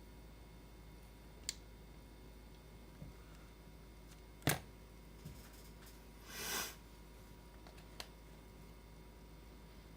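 Small chainsaw parts handled during bench assembly: a few sharp, separate clicks, the loudest about halfway through, and a brief scraping rustle a little after it, over quiet room tone.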